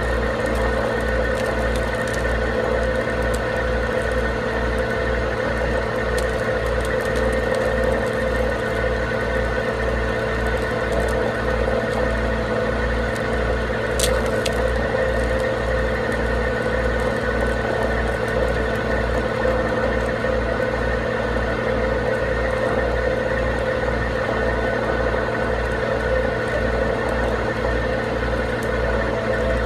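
A tow truck's engine running steadily during a winch recovery, with a low throb pulsing two or three times a second and a steady whine on top. There is a single sharp click about halfway through.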